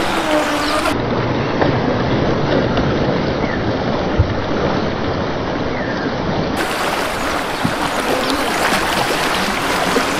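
Steady rush of sea water and wind. Near the end comes a faint whine that rises and falls, from the UDIRC UDI005 RC speedboat's brushless motor changing speed.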